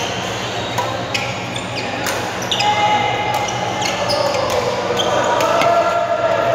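Badminton doubles rally: several sharp racket-on-shuttlecock hits and short squeaks of court shoes on the floor, echoing in a large sports hall with background chatter from other courts.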